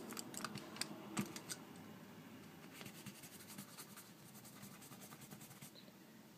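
Faint clicking and light clattering of makeup brushes and products being rummaged through in a search for a brush: a cluster of clicks in the first second and a half, then sparser light ticks.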